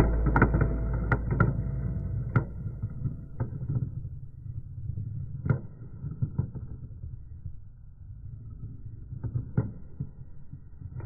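Three metal GraviTrax marbles rolling round a circular plastic track, a continuous rolling rumble that fades as they slow down, with a dozen or so sharp clicks where they knock into each other and the track walls.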